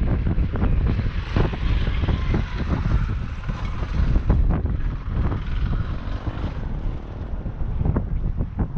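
A motorcycle's engine grows louder as it rides past, peaking about two to four seconds in, then fades as it moves away. Wind buffets the microphone with a low rumble and gusts throughout.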